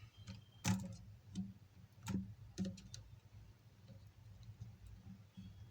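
A few sharp plastic clicks and taps as the laptop battery's connector is handled and plugged onto the motherboard, the strongest about a second in and another about two seconds in, over a faint steady low hum.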